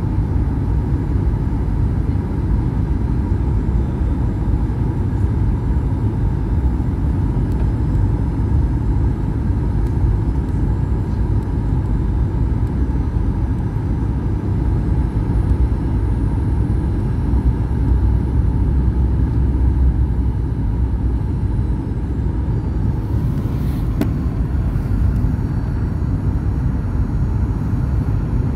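Steady low rumble of a Boeing 737-800 on its landing approach, heard from inside the cabin: CFM56 engine and airflow noise with a faint steady whine. A brief hiss and a click come near the end.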